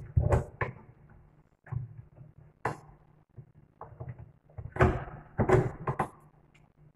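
Chrome corner pull-out shelf hardware clicking and knocking as its metal parts are seated on their pins inside a kitchen base cabinet: a string of short, separate knocks, the loudest just before and after five seconds in.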